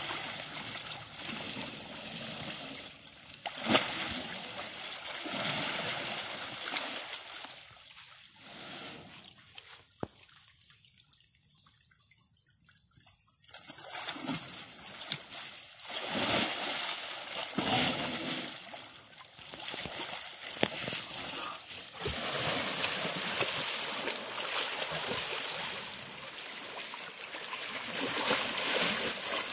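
Asian elephant wallowing in a muddy pond: water splashing and sloshing as it rolls and heaves itself up, with a quieter lull about halfway through.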